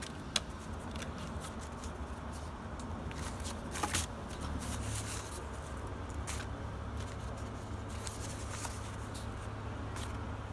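Dry newspaper record sleeves rustling and flapping as a stack of 45 rpm singles is flipped through by hand, with scattered crisp paper clicks. A steady low hum comes in about halfway through.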